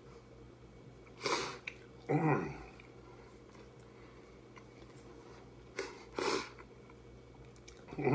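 A man with his mouth crammed full of tacos, chewing and breathing hard through his nose: loud, noisy nasal breaths about a second in and again around six seconds, each with a short vocal sound that falls in pitch, between quieter chewing.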